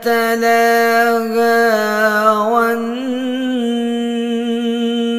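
A reciter's voice chanting the Qur'an in melodic tajwid style, drawing out the word 'talaha' as one long held phrase on a steady pitch with slight wavering ornaments and a small rise about halfway through.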